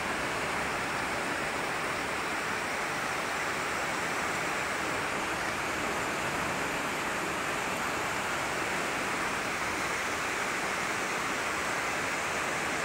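A river in full flood, its fast water rushing as a steady, even noise without a break.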